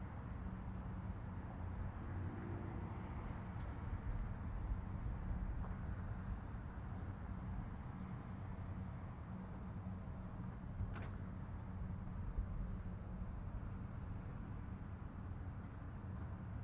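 Outdoor ambience: a steady low rumble with faint, rapidly pulsing insect chirping, and a single brief tick about eleven seconds in.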